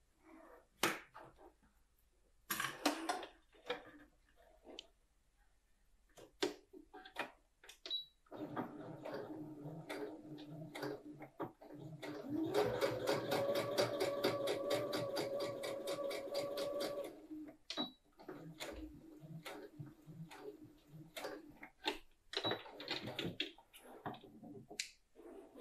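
Domestic electric sewing machine stitching a seam: after some scattered handling clicks it starts running about eight seconds in, speeds up with a rising whine a few seconds later, runs steadily and stops at about seventeen seconds. Softer, broken stitching and clicks follow, with a snip of scissors cutting the threads near the end.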